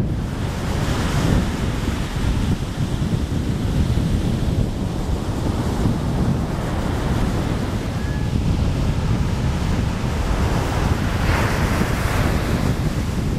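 Ocean surf breaking and washing up the beach, the hiss of a breaking wave swelling about a second in and again near the end, under a steady rumble of wind buffeting the microphone.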